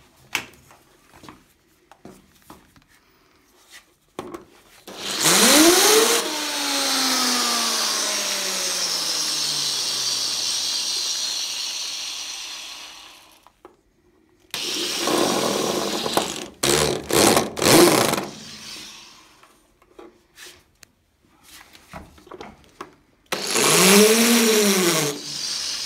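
Electric drill driving a screw into a door hinge: one long run of about eight seconds whose pitch climbs, then sinks slowly as the screw takes up the load. Then comes a stretch of short stop-start trigger pulls, and near the end a brief burst that rises and falls.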